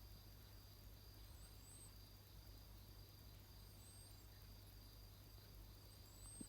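Near silence, with a faint high, rising whistle three times, about every two to two and a half seconds: the nose whistling on each breath of a sleeper snoring through a nose blocked by chronic rhinitis.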